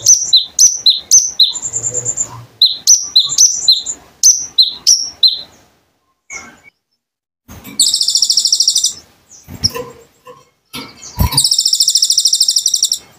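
Konin songbird singing: a run of sharp high chirps, about two or three a second, then after a short pause two fast, buzzy high trills, each lasting around a second and a half. A low thump comes just before the second trill.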